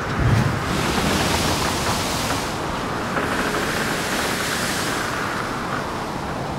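Rough surf: a heavy wave breaks just after the start and washes out over a steady rushing noise.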